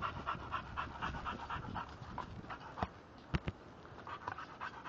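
A pit bull-type dog panting fast with her tongue out, about five breaths a second, pausing briefly a little after the middle before starting again. A couple of sharp clicks sound about three seconds in.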